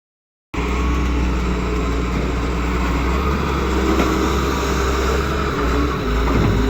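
Doosan excavator's diesel engine running steadily while the machine works, starting suddenly about half a second in.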